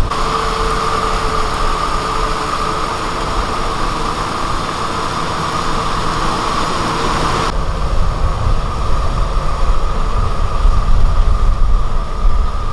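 Kubota M6040SU tractor's diesel engine running steadily under load while its rear rotavator churns wet paddy mud, a constant machine drone with a high whine over a low rumble. About halfway through the sound changes abruptly: the whine fades and the low rumble gets heavier.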